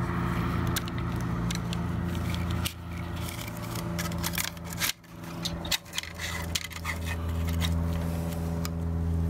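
Metal clicks and clinks as a band-type piston ring compressor, its steel band and ratchet, is handled and fitted around a piston, over a steady low hum.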